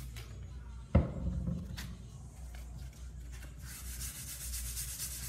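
Hand wet sanding of a base-coated polyurethane vent cap: the sandpaper rubs the painted surface in quick back-and-forth strokes, starting about three and a half seconds in. A single sharp knock comes about a second in.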